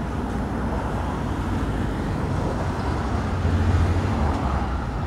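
Tatra T3 tram rolling along its track toward the listener over steady street-traffic noise. A low rumble swells about three and a half seconds in.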